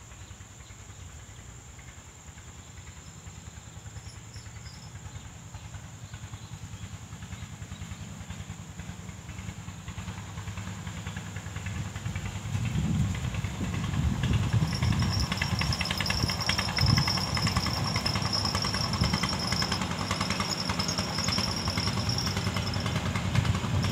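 Small river boat's engine running with a rumbling putter, faint at first and growing much louder from about halfway as it approaches. A high steady whine rides over it from about two-thirds in.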